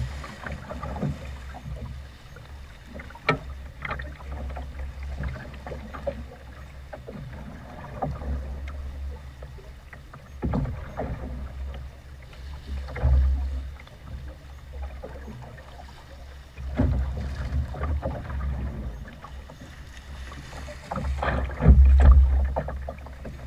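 Wind buffeting the microphone in gusts, with waves slapping and knocking against the hull of a small open boat in choppy sea. The rumble swells several times, loudest near the end.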